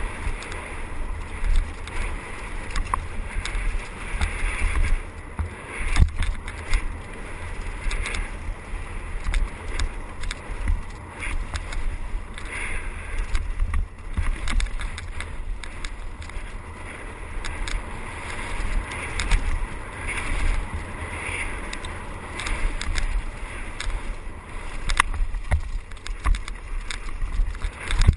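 Mountain bike descending a dirt trail at speed, heard from a helmet-mounted camera: heavy wind buffeting on the microphone over the rolling noise of tyres on dirt, with frequent sharp rattles and knocks from the bike over the rough ground.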